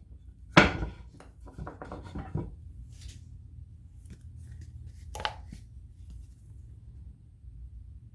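Wooden 2x4 pieces being handled on the workbench: one sharp knock a little after the start, then a quick run of light clicks and taps, and one more tap about five seconds in.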